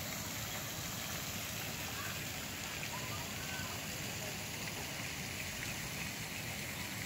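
Steady splashing of a pond fountain, its spray pattering back onto the water surface.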